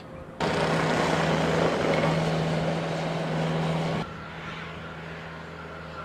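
Blizzard wind blowing hard, with a steady engine hum underneath. It starts suddenly, then cuts abruptly about four seconds in to a quieter steady noise with the same hum.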